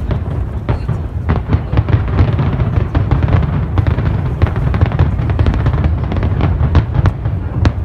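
Fireworks display: rapid, overlapping bangs and crackles of aerial shells bursting, over a constant low rumble.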